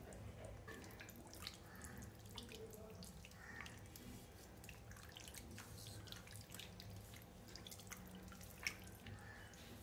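Faint splashing and dripping of water as raw chicken pieces are rubbed by hand in a steel bowl of water, with one slightly louder splash near the end.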